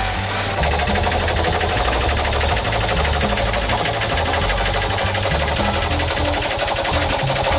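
Fiat 500's air-cooled two-cylinder engine idling, with a fast, even mechanical clatter.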